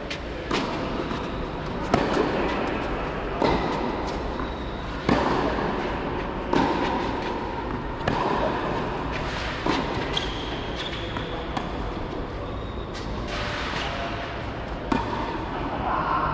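Tennis rally on a covered clay court: a racket strikes the ball about every one and a half seconds, the hits echoing briefly in the hall, with a pause of a few seconds before one more strike near the end.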